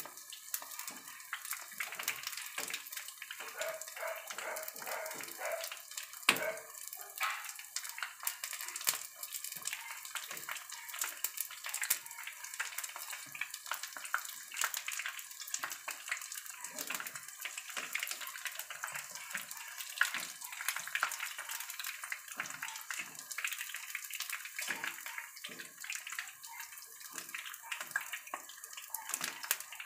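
Battered chicken pieces frying in hot oil in a pan: steady sizzling and crackling, with occasional knocks of tongs against the pan, one sharp knock about six seconds in.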